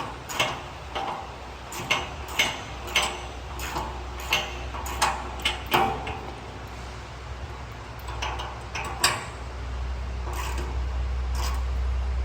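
A wrench clicking and knocking on metal in short strokes as bolts on a drum mower's frame are loosened, about one or two clicks a second.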